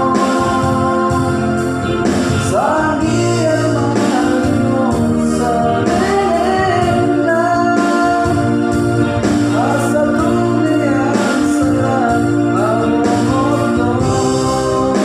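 A voice singing a slow song over held electronic keyboard chords and a steady bass, the melody gliding between notes.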